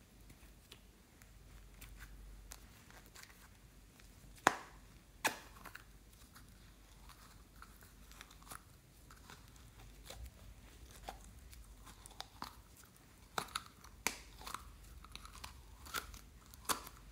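A Minion-shaped plastic toy container squeezed by hand, its plastic giving irregular sharp clicks and crackles as slime is pushed out of it. The loudest clicks come twice about 4 to 5 seconds in, and in a cluster in the last few seconds.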